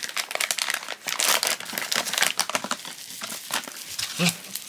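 Plastic bubble-wrap bag from a blind-box figure crinkling in the hands, a dense, irregular run of crackles.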